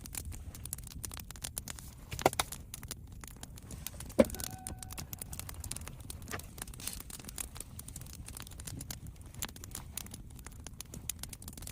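Small objects being handled and set down: scattered light clicks and taps, with a sharper knock about four seconds in that rings briefly.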